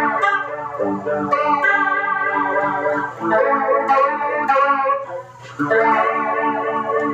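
Electric guitar played through a Joyo Vision Dual Modulation pedal set to flanger: several chords strummed and left to ring, with a short break a little after five seconds before the next chord.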